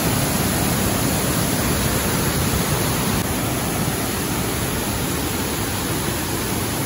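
Rushing water of a waterfall: a loud, steady roar of falling water.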